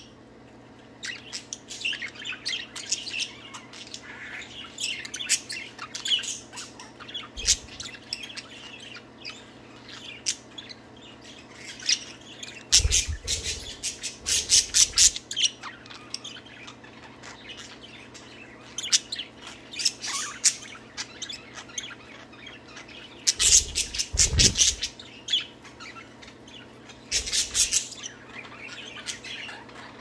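Budgerigars chattering and warbling in quick, busy chirps, with a few squawks. It grows louder in three stretches, around the middle and near the end.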